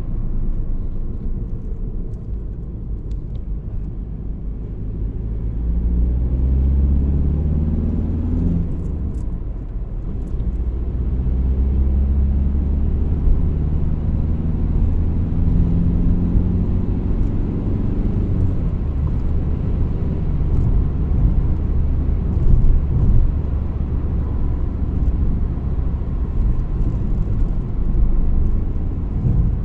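VW Golf 4 1.9 TDI AXR four-cylinder diesel engine pulling the car along. Its revs climb twice, with a drop between them like a gear change, then settle. A faint thin whistle sits above the engine; the owner traces the car's squeal and whistle to the EGR valve/turbo area.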